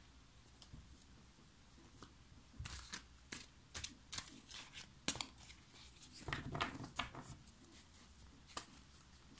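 A deck of angel oracle cards being picked up and handled: scattered light clicks and rustles of the cards, busiest in the middle.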